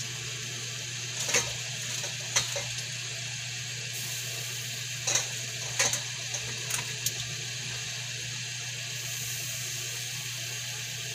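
Metal tongs clicking sharply against a nonstick pot about five times as Malabar spinach leaves are pressed down into simmering broth. A steady hiss from the simmering pot lies under the clicks.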